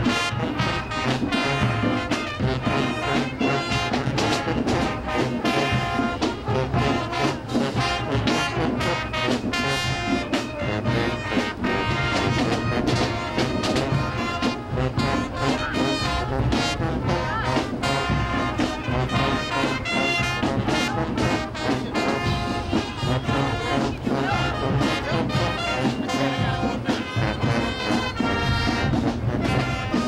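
High school marching band playing as it marches: brass with trombones and trumpets carrying the tune over a steady drum beat.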